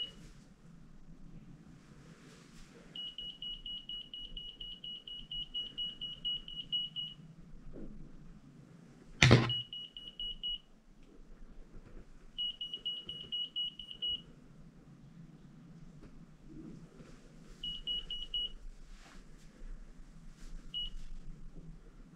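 Handheld KKmoon EMF meter sounding its alarm: runs of rapid high-pitched beeps that come and go as the electric-field reading climbs past its threshold. A single sharp knock about nine seconds in is the loudest moment.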